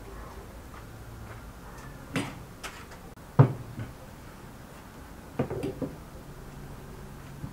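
A few separate knocks and clinks of forks against plates and dishes on a dining table, the loudest about three and a half seconds in and a small cluster a couple of seconds later.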